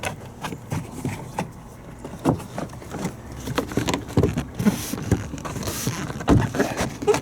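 Scattered clicks, taps and knocks of a van's door panel and trim pieces being handled and pushed into place, with two brief scraping rustles about four and a half and six seconds in.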